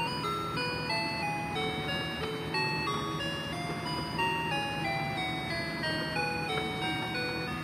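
Cash pusher toy playing its electronic tune, a simple melody of short stepped notes, over a steady low hum.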